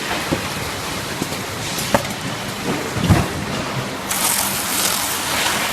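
Bottle filling and packing line machinery running: a steady mechanical noise with a few sharp knocks, and a loud hiss starting about four seconds in.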